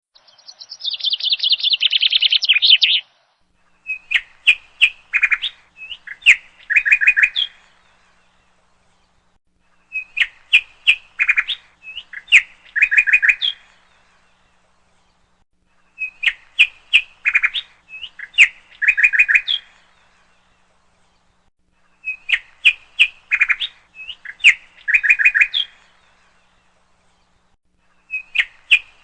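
Birdsong: a quick chirping trill, then one phrase of sharp chirps and clicks repeated exactly, about every six seconds, with silent gaps between.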